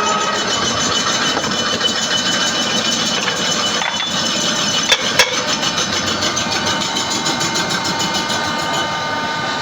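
Drill machine running steadily, with two sharp metallic clicks about five seconds in.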